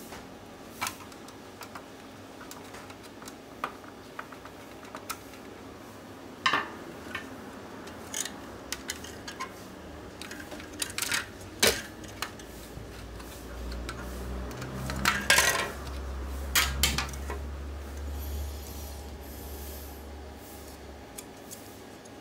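Scattered clicks, taps and scrapes of small plastic and metal parts as a laptop cooling pad's fan is worked apart with a small screwdriver. The clicks come more thickly about two-thirds of the way through.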